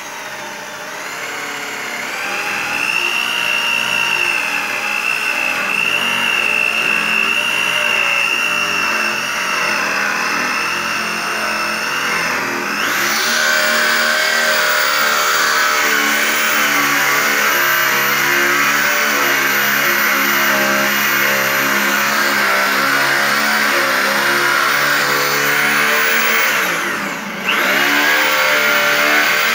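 Handheld corded electric drill boring a Euro hinge cup hole in a laminated board, the motor running continuously as the bit cuts slowly. The sound turns harsher about thirteen seconds in. Near the end the motor slows briefly and speeds back up.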